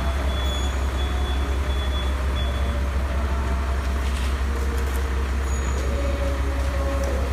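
Forklift engine running steadily with a deep, even drone while it moves a large framed load.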